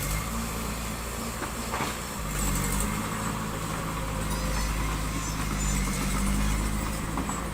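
Diesel engine of heavy construction machinery running steadily, its pitch rising and falling a little as the throttle changes.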